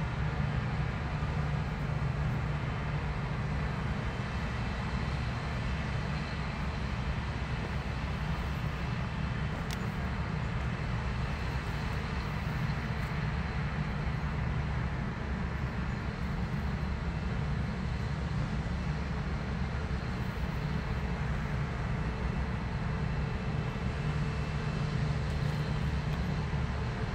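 New Holland combine harvester cutting and threshing wheat: a steady low drone from its engine and threshing machinery.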